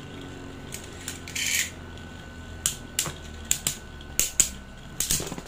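Beyblade Burst spinning tops whirring on a plastic stadium floor, with sharp plastic clacks each time they collide, about eight hits, most of them in the second half.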